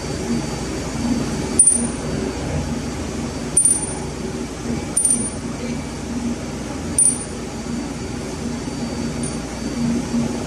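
Small steel fuel-pump parts clinking as they are handled: five light metallic clicks with a short high ring, roughly two seconds apart. A steady machinery hum runs underneath.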